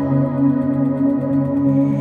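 Background music: slow ambient music of held organ-like synthesizer chords.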